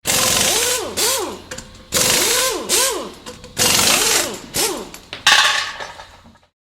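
Electronic outro sound effect: three similar noisy swooshes about two seconds apart, each laced with quick chirping tones that rise and fall, fading out near the end.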